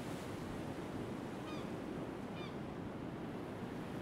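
Steady outdoor wind noise rumbling across open grassland, with two faint short bird calls about a second and a half and two and a half seconds in.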